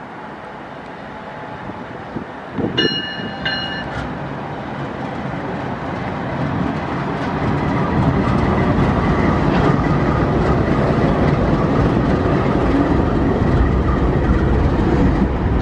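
Canadian Pacific diesel freight locomotives approaching and passing close below, their engines' rumble building to a loud, steady level. About three seconds in, two short blasts of the locomotive's multi-tone air horn.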